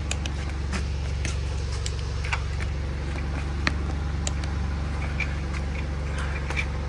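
Torque wrench clicking on the beadlock ring bolts as each reaches its set torque: scattered short sharp clicks, about a dozen, over a steady low machine hum.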